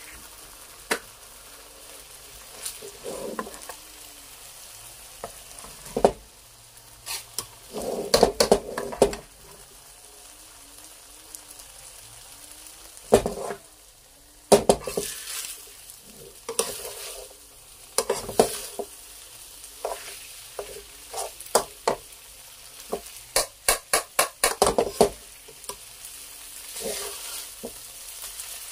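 Rice noodles and egg sizzling in a hot metal wok for pad see ew, with a metal spatula scraping and clanking against the wok as the noodles are tossed. The clanks come in irregular clusters, with a fast run of strokes a little past two-thirds of the way through.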